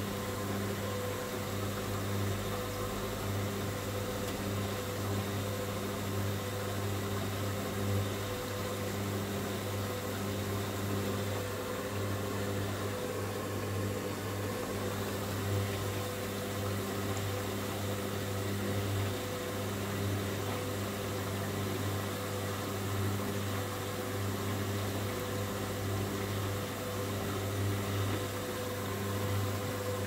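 Hoover front-loading washing machine turning its drum slowly with a sudsy load, a steady low hum of motor or pump running throughout. This is the suds-lock stage after the first deep rinse of a cotton 90 °C wash, when excess suds keep the machine from going into a fast spin.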